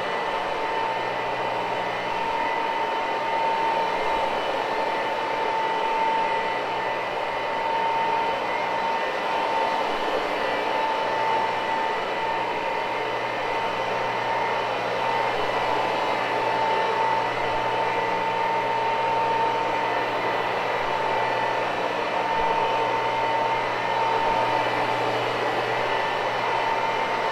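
Oxy-Dry carpet cleaning machine running steadily over the carpet, its motor giving a constant high whine over a low hum.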